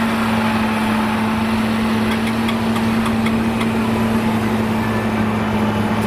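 Engine idling steadily, an even low hum that holds without change, with a few faint ticks in the middle.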